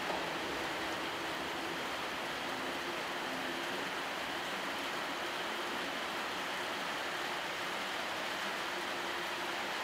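Freight train of covered wagons rolling away into the distance, heard as a steady rushing hiss with a faint low hum that comes and goes.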